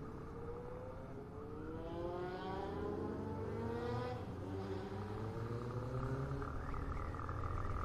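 Motorcycle engine heard from on board, accelerating: its pitch climbs for about four seconds, drops back at a gear change, climbs again and then settles into a steady note near the end, over low road and wind rumble.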